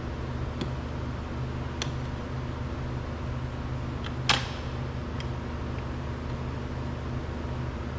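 Light plastic clicks of door-panel wiring connectors being handled, with one sharper snap about four seconds in, over a steady low hum.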